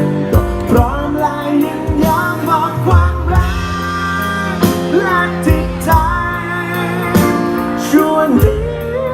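A Thai pop love song: a sung melody with vibrato over a band with a steady bass line and drum beats.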